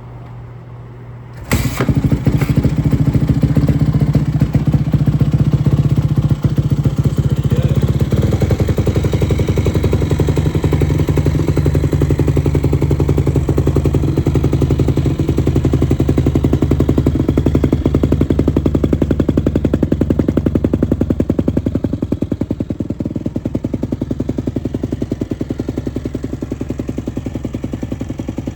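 Freshly rebuilt 2001 Yamaha WR250F's four-stroke single-cylinder engine running, quiet at first, then jumping loud about a second and a half in as the throttle opens and the bike rides off. It runs hard for about twenty seconds and drops a little quieter near the end.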